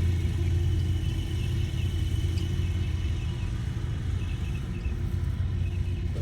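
Steady low rumble of a running motor vehicle, even throughout, with faint short high chirps over it.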